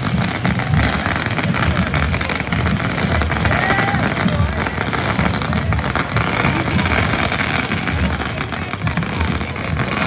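Continuous outdoor din with a heavy, uneven low rumble, like wind buffeting the microphone over crowd noise.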